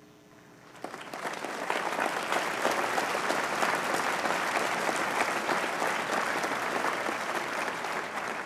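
Large audience applauding, starting about a second in, holding steady, then beginning to fade near the end.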